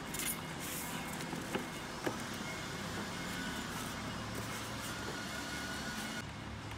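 Cardboard box and plastic bag rustling as an air pump is unpacked, with two sharp knocks about a second and a half and two seconds in, over a steady low hum.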